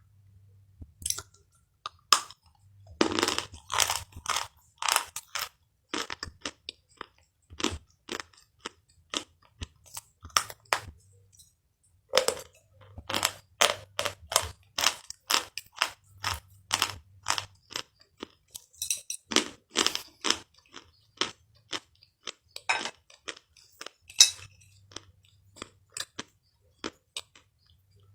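Crunching and chewing of crunchy food: irregular clusters of sharp crunches with short pauses between bites.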